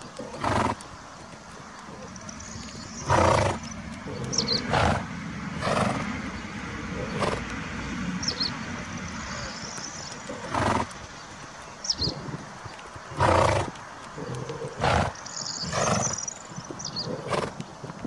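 Horses grazing: short ripping sounds of grass being torn off, about a dozen times, every second or two. Birds chirp faintly in between.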